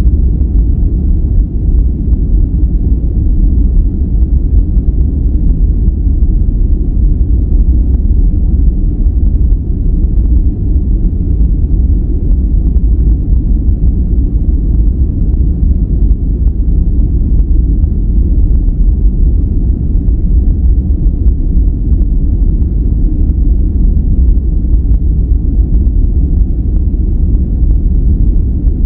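Steady, unchanging deep noise played as a sleep and relaxation sound, with its weight in the low bass and almost no high hiss, closer to brown noise than to true white noise.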